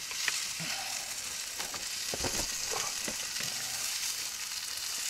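Potatoes and pork fat frying in a pan, a steady sizzle, while a wooden spatula stirs them with a few light knocks against the pan.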